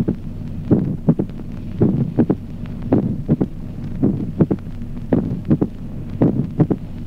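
Recorded heart sounds in sinus rhythm, with a mitral opening snap: a sharp extra click that follows the second heart sound after a long interval. The beats come slightly slower than one a second. An opening snap is the sign of mitral stenosis, and a long gap after the second sound is typical of milder stenosis.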